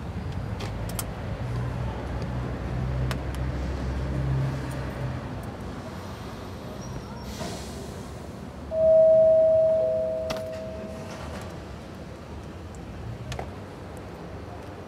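Street traffic rumbling low, then about nine seconds in a doorbell chimes two notes, a high one and then a fainter lower one, ringing out and fading over a couple of seconds. A few light clicks sound around it.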